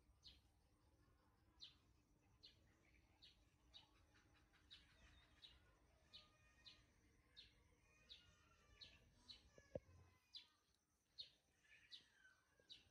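Near silence, with a bird chirping faintly and steadily: short, high notes that fall slightly in pitch, a little more than one a second. There is a single soft click about ten seconds in.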